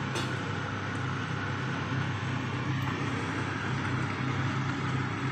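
Steady low hum and hiss of a kitchen stove's exhaust fan running, with a single light click at the very start.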